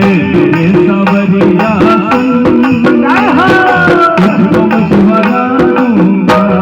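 Instrumental interlude of a Hindi Krishna bhajan: a tabla-style hand-drum rhythm under a melody line, with a sliding note about three seconds in.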